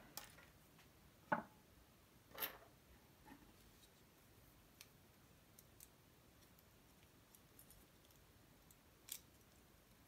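Near silence broken by a few faint, scattered clicks, the loudest about two and a half seconds in: a small hand tool and the little metal clips and springs of a Commodore Datasette head assembly being handled as they are taken off.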